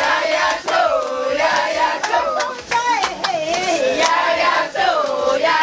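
A group of people singing together, with hand claps.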